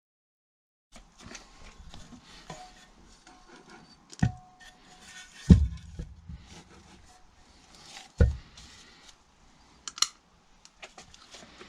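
Metal transfer-case parts and hand tools clinking and knocking as the gearbox is taken apart, with three heavy thuds about four, five and a half and eight seconds in, the middle one loudest, and a sharp click near the end.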